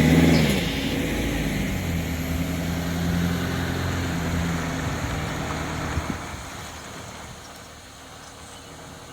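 A car engine running steadily, fading away over the last few seconds, with a single sharp click about six seconds in.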